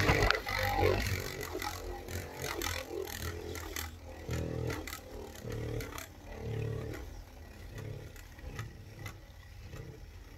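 Beyblade Burst spinning top (Gargoyle G5) spinning and scraping on a plastic Beyblade stadium floor, with rattling and small clicks. It is loudest at first, swells a few times as the top wanders across the floor, and grows quieter as it slows down.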